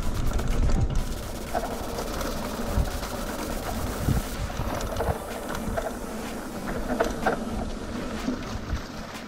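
Rurok Kanlaon enduro mountain bike riding down a dirt trail: wind buffets the microphone and the tyres rumble, with scattered clicks and rattles from the bike. It is loudest in the first second.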